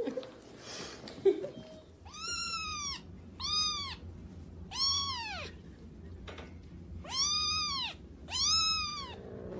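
Grey kitten meowing five times in high-pitched calls, each one rising and then falling in pitch. A short sharp click comes about a second in, before the first meow.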